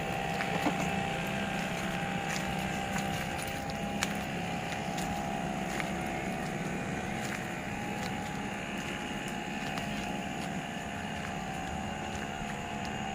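An engine running steadily at a constant, unchanging pitch, with a few faint clicks over it.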